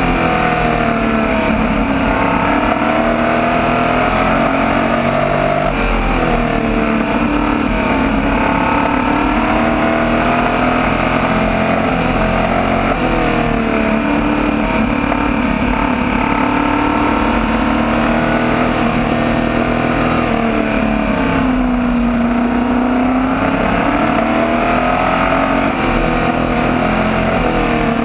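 Onboard sound of a small open-wheel sprint-type race car's engine at racing speed. Its pitch climbs and falls back in a cycle about every seven to eight seconds as it accelerates and lifts around the oval.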